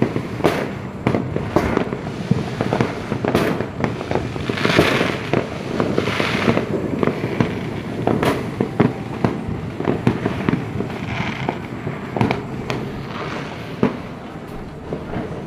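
Fireworks and firecrackers going off in a dense, continuous string of pops and bangs, with a few hissing swells in between.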